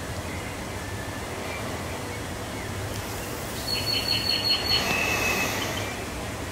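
Steady outdoor city background noise, with a quick run of about six high chirps a little past the middle.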